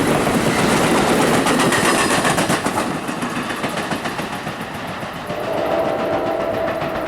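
A train running along the rails, wheels clattering over the rail joints, easing off about three seconds in. From about five seconds in, a steady engine drone rises under it.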